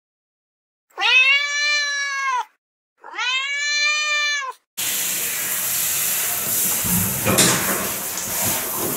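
A cat meows twice, two long drawn-out meows with a rising-then-falling pitch. About halfway through, a shower sprays water with a steady hiss.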